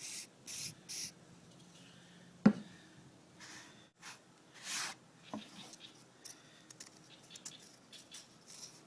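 Short hissing spritzes of CA glue activator from a spray bottle onto a fresh super-glue fill: three quick puffs in the first second, then two longer ones around three and a half and five seconds in. A sharp click about two and a half seconds in is the loudest sound, with a smaller knock a few seconds later.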